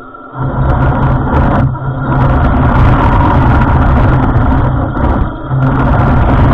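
Heng Long Tiger II radio-controlled tank driving on its metal tracks over pavement: motors running and the tracks clattering. The sound drops away briefly near the start and again about five seconds in, then picks up again.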